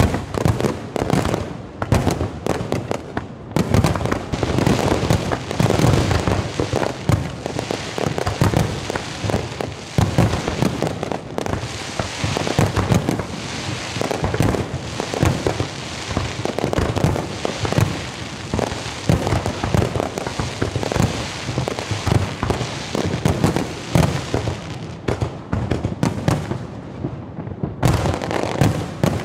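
Aerial fireworks display: a dense barrage of overlapping shell bursts, deep booms mixed with sharp bangs and crackle. It eases for a couple of seconds near the end, then a new volley of bangs starts.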